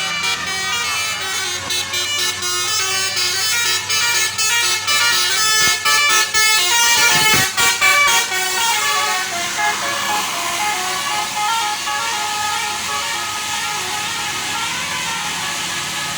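Tour bus telolet basuri multi-tone air horn playing a melody, its notes stepping quickly for the first half and then held longer.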